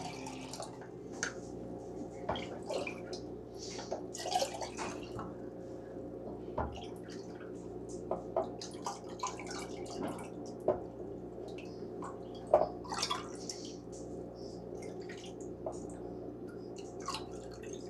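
Hot cider being ladled from a slow cooker into a mug: liquid pouring and dripping in small, irregular splashes, with light clinks of the ladle against the crock and mug. A faint steady hum runs underneath.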